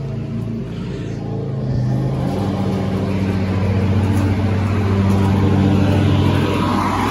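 A steady motor or engine hum. Its pitch pattern shifts about two seconds in, and it swells in level before easing near the end.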